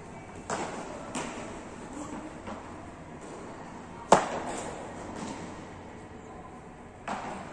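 A beach tennis paddle strikes the ball once in an overhead serve about four seconds in, a sharp pop that echoes through a large hall. Fainter knocks of other ball hits come in the first second and near the end.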